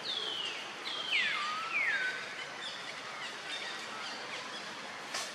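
Bird calls: a run of clear whistled notes, each sliding down in pitch, several close together in the first two seconds and fainter ones after, over a steady outdoor hiss. A single sharp click near the end.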